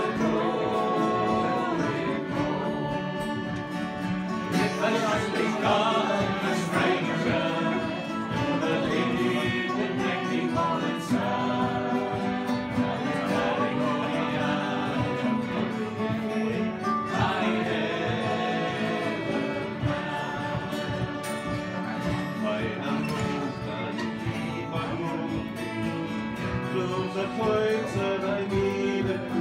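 Irish traditional session music: fiddles, mandolin and guitar playing a tune together without pause.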